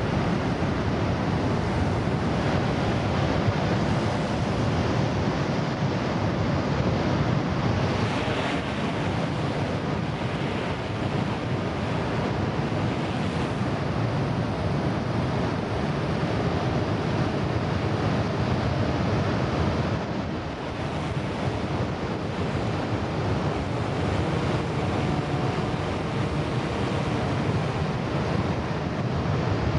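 Large swell breaking and washing steadily, with wind buffeting the microphone.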